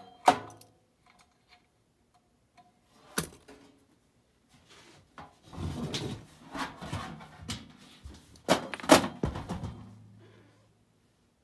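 Metal clanks, knocks and scraping as an ECM blower motor is worked loose and pulled out of its sheet-metal blower housing, with a few sharp clicks first and the loudest knocks near the end.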